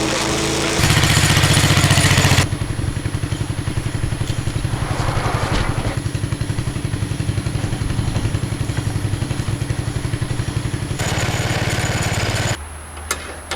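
Wood chipper's engine running steadily with a pulsing beat, with two louder stretches of rough noise, about a second in and near the end. The level drops shortly before the end.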